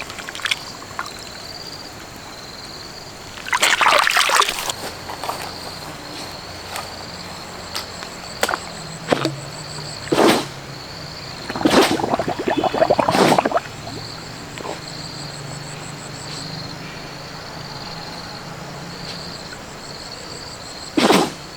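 Water splashing and sloshing in several short bursts, the biggest about four seconds in, around twelve to thirteen seconds in and near the end, over a steady high-pitched background tone.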